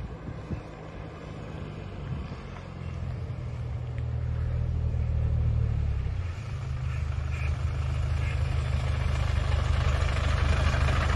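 Otokar midibus's diesel engine running as the bus drives slowly closer, growing steadily louder, with a brief dip in the engine sound about six seconds in.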